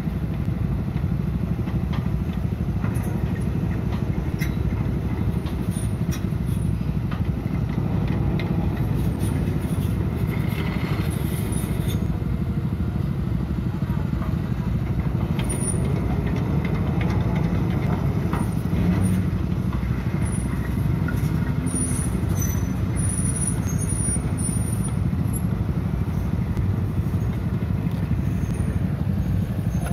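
Hitachi Zaxis 130 amphibious excavator's diesel engine running steadily as the machine travels on its pontoon tracks, with scattered light clicks and clanks.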